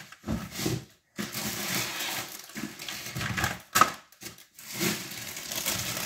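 Plastic shopping bags and grocery packaging rustling and crinkling as items are rummaged for and pulled out, in fits and starts with a few brief gaps.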